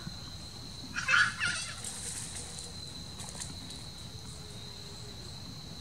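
A steady, high insect trill runs throughout. About a second in, a short rough call lasting about half a second cuts across it and is the loudest sound here.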